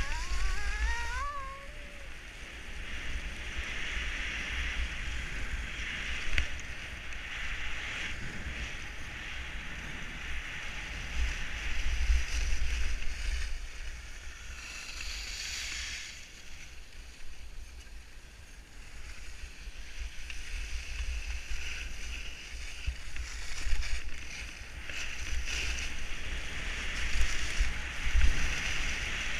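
Skis sliding and scraping over groomed snow in a steady hiss that swells and fades with each turn, with wind rumbling on a GoPro action camera's microphone.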